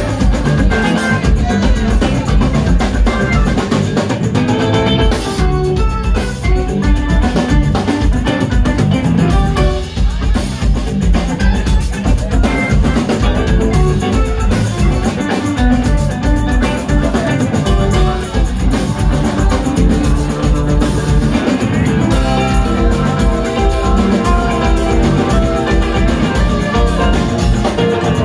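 A live funk band playing an instrumental number: a drum kit keeping a steady beat under electric guitar, bass and keyboards.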